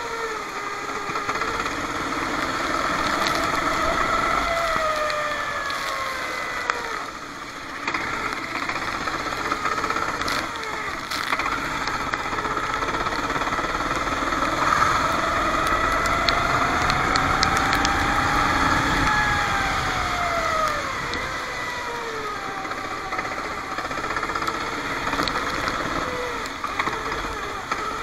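Racing kart engine at full throttle, its pitch climbing steadily down the straights and dropping each time the driver lifts off for a corner, several times over, with a short lull about seven seconds in.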